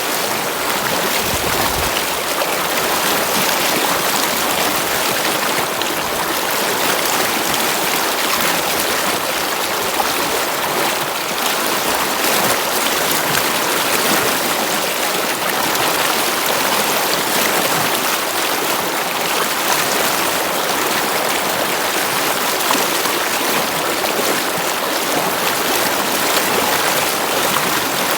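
Water flowing in a stream, a steady rushing and babbling with no breaks.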